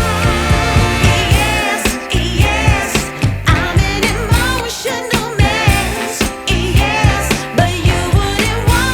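Background music: a song with a singer's vibrato voice over a steady beat.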